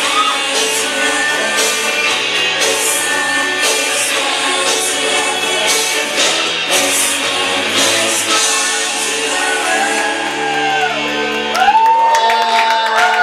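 Rock song with sung vocals and a steady beat, played loudly in a club. In the last few seconds, high gliding whoops from the crowd rise over the music.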